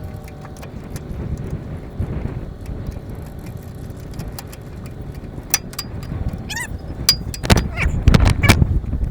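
A vehicle engine running steadily under metallic clicks, rattles and clanks as a trailer is hitched up, with a run of louder clanks near the end.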